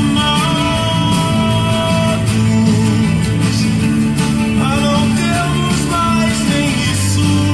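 A song playing, with plucked guitar, a steady bass line and a singing voice.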